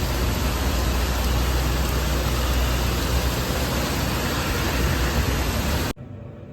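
Steady rushing noise with a strong low rumble, cutting off suddenly near the end.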